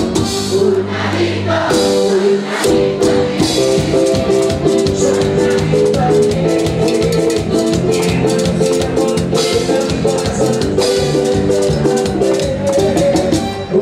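Live band playing Latin dance music: a steady beat of drums and shaker under sustained keyboard chords.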